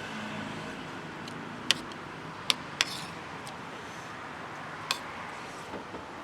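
Cutlery clinking sharply against a plate four times, over a steady hum of street traffic.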